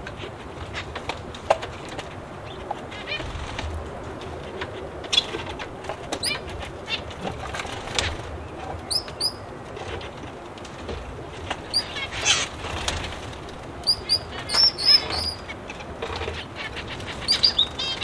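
Many small aviary birds chirping and calling: short high chirps and trills come in scattered bursts, busiest about twelve seconds in and again near the end, over a steady low background noise.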